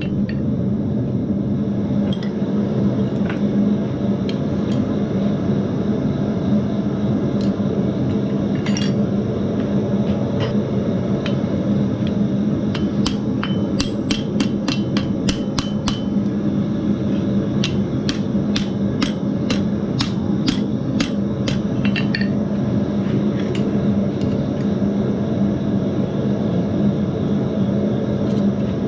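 Hand hammer striking hot steel on an anvil, rolling the end of a forged strap hinge over the anvil edge to curl the knuckle that will take the pin. The blows come in runs, quickest in the middle, over a steady low hum.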